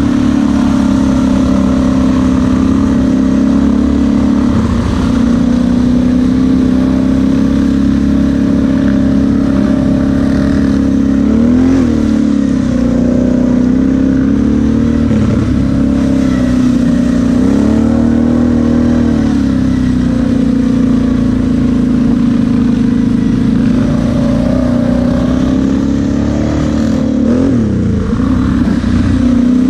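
Kawasaki KFX 700 V-Force quad's V-twin engine running at steady riding revs. The pitch dips and rises again about four times as the throttle is eased and reopened.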